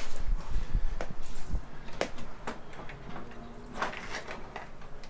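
Scattered knocks and clicks of motorcycle parts being handled, with low thuds in the first second and a half and single sharp knocks about a second in, around two seconds and near four seconds.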